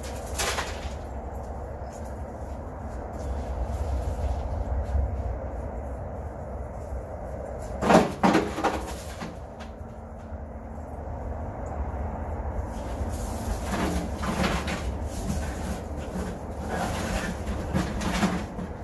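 Chunks of broken stone and concrete being dropped into a steel wheelbarrow, clunking against the tray and each other in scattered clusters. The loudest cluster comes about eight seconds in, over a steady low rumble.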